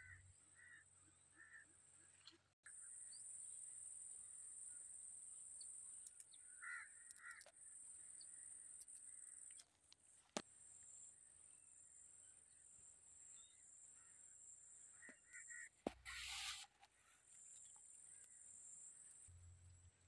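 Faint outdoor field ambience: a steady high-pitched drone with a few short bird calls in small groups, a couple of sharp clicks, and a brief louder rustle near the end.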